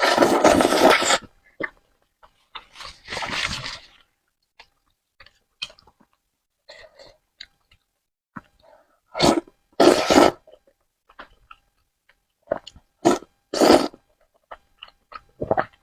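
A person eating spicy noodles close to the microphone: several loud, noisy slurps, the longest at the start, with small wet chewing clicks between them.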